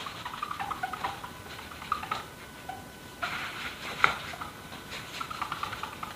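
Whiteboard eraser rubbing across a whiteboard in short, squeaky strokes, with a few sharper swipes about two, three and four seconds in.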